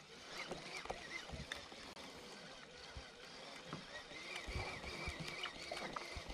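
Small fishing boat's hull and gear: scattered faint knocks and a few dull thumps, as of feet, rods or tackle bumping the boat.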